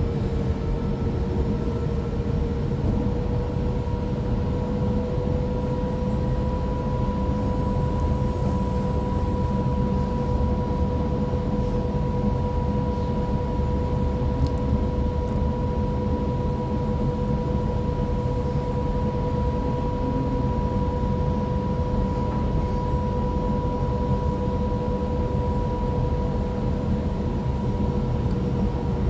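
Inside a Waratah electric train running at steady speed: a constant rumble of wheels on track with a steady whine from the traction motors, rising slightly in pitch over the first few seconds and then holding.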